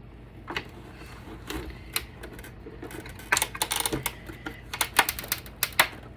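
Sharp clicks and rattling knocks of hard plastic and metal parts being handled as an APC battery backup unit is worked apart, a few single clicks and then quick clusters about three seconds in and again near five seconds.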